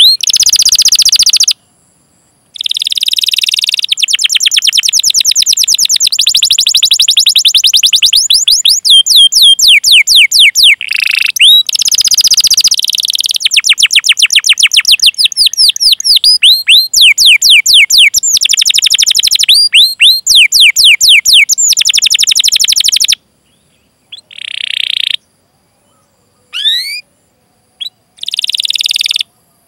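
Domestic canary singing: long rolled trills of rapid, repeated high downward-sweeping "cuit" notes. There is a brief break about two seconds in, and near the end the song thins to a few short separate calls with pauses between.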